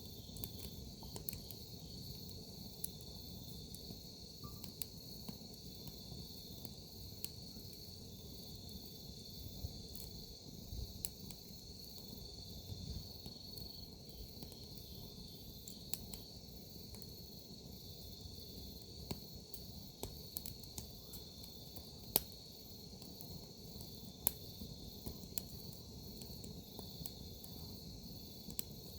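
Crickets and other field insects chirping in a steady high-pitched chorus, over a wood campfire burning with scattered sharp crackles and pops and a low rumble; the two loudest pops come about 22 and 24 seconds in.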